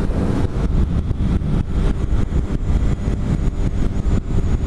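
BMW F800 GS parallel-twin engine running with the bike under way, mixed with wind rushing over the microphone.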